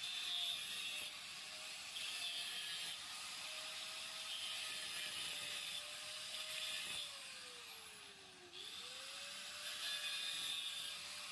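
A small motor whirring steadily under a high hiss. About eight seconds in its pitch sags and the sound dips, then it picks back up.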